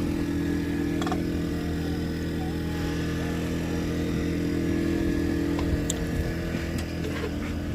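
A motor running with a steady, unchanging hum.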